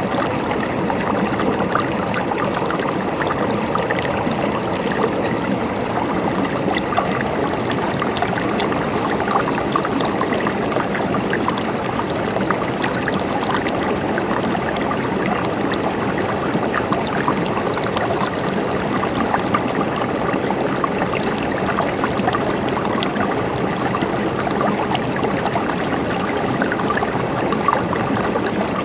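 A stream of water flowing and trickling steadily, an even rush with fine splashy ticks in it.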